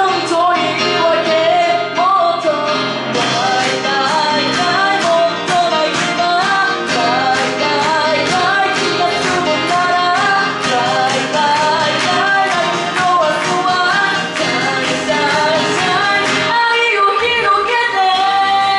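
A woman sings live into a handheld microphone over a backing track. A steady beat comes in about three seconds in, and near the end the beat and bass drop out, leaving her voice over lighter accompaniment.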